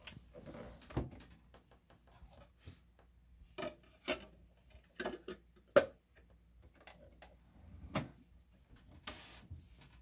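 Plastic clicks and knocks of a treasure-chest CD player being handled: its hinged CD lid opened and shut, the disc touched and a front button pressed. Separate clicks come one by one, the sharpest about six seconds in, with a short rubbing sound near the end.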